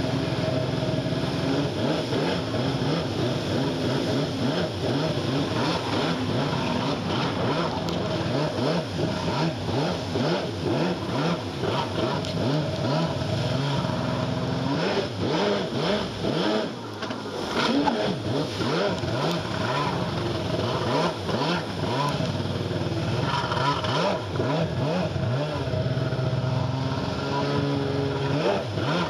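Yamaha Superjet stand-up jet ski engine running and revving up and down, with water splashing against the hull.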